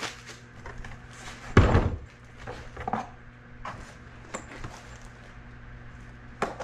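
Cardboard boxes being handled: a loud thump about a second and a half in, then lighter scrapes and knocks as a long shock-absorber box is pulled out of a shipping carton.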